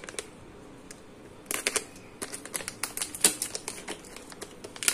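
A thin plastic parts bag being cut and torn open with a utility knife: sharp irregular clicks and crinkles, starting about a second and a half in.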